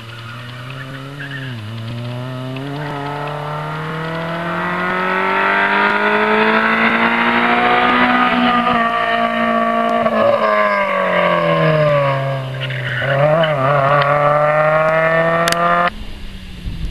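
Rally car engine coming closer under hard acceleration, its note climbing and growing louder, then falling away, with a dip about twelve seconds in and a wavering tone just after as the car slows. The sound cuts off abruptly near the end.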